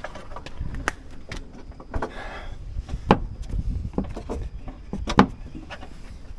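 Hands working a wiring harness plug through a hole in a Jeep's body: scattered clicks and knocks, two sharper ones near the middle and near the end, and a short rustle of scraping about two seconds in.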